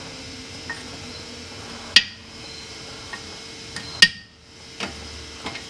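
Metal hand tools clinking against the brake caliper and hose fitting while the old brake hose is worked out: two sharp clinks about two seconds apart, with a few lighter ticks around them.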